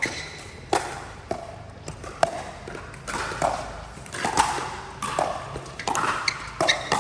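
Pickleball rally: paddles popping against the hollow plastic ball and the ball bouncing on the court, a sharp hit about every second.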